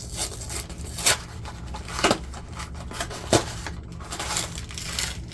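Frozen sorbet bar packaging being handled and opened: a steady crinkling rustle broken by several sharp clicks or knocks, the loudest about a second in and about three seconds in.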